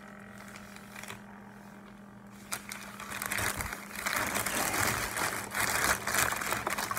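Thin plastic shopping bag crinkling and rustling as a hand rummages inside it, starting about two and a half seconds in and going on busily after that.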